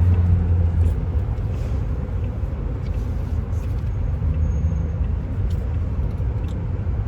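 Steady low rumble of a car being driven, engine and road noise heard from inside the cabin, a little louder in the first second.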